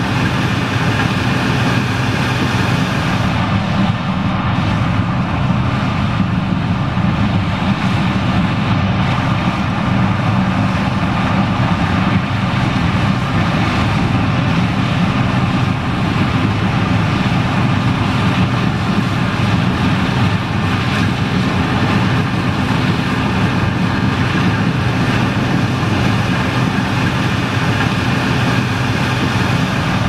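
John Deere 9560STS combine harvester running steadily while harvesting corn, its engine and threshing machinery making a constant, even drone.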